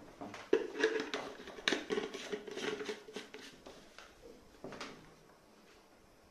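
Plastic handling noise as the white paint container is fitted onto a Buildskill BPS2100 Pro HVLP spray gun: a quick run of clicks and scrapes over the first few seconds, then one knock near five seconds in.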